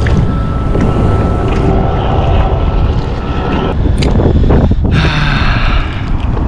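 Wind buffeting the microphone, a steady low rumble, with a few short clicks and rustles over it.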